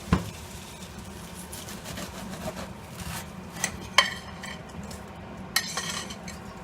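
Utensil clinking and scraping against a skillet as fried potatoes are moved out of it, with a few sharp clinks, the loudest about four seconds in.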